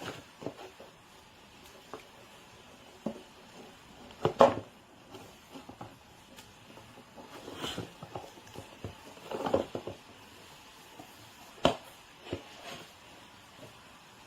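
Scattered handling noises: light knocks, clicks and rustles, with a louder clatter about four seconds in and a sharp click near the end.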